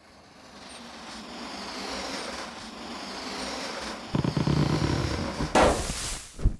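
Intro animation sound effects: a noisy whoosh that swells over about four seconds, then a low rumble, then a loud sudden burst about five and a half seconds in, and a short hit near the end.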